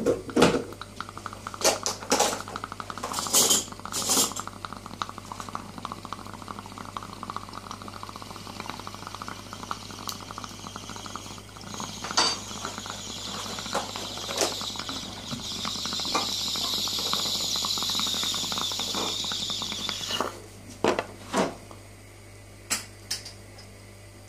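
A small glass water pipe being smoked: after a few clicks and knocks of glass, a long draw bubbles through the water for many seconds, turning into a louder, higher hiss from about 12 to 20 seconds in, followed by a few more sharp clicks.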